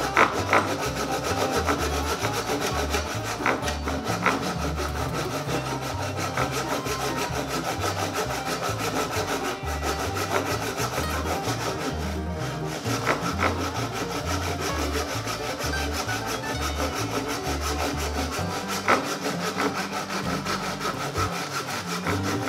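Hand pull saw ripping down the grain of a wooden hatchet handle held in a vise, with continuous back-and-forth strokes, cutting the kerf for the handle's wedge.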